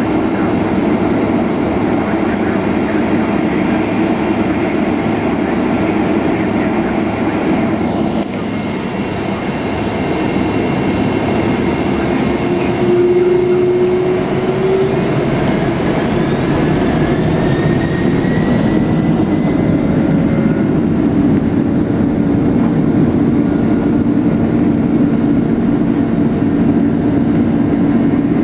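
Boeing 767 jet engines and cabin noise heard from inside the cabin, a steady loud rumble with a whine. A little past halfway the engine whine rises in pitch, then settles into a steady higher tone.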